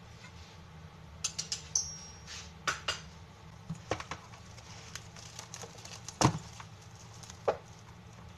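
Metal spoon clinking and knocking against a stainless steel mixing bowl of marinating sliced beef: a string of sharp irregular clicks, one with a brief metallic ring, and the loudest knock about six seconds in.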